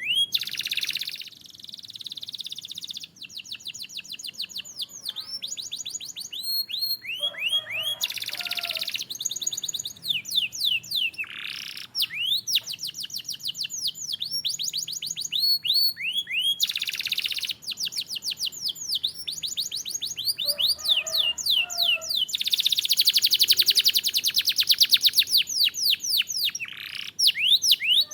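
Canary singing a long, varied song: fast trills of repeated sweeping notes, broken by several dense rolling phrases, the longest near the end.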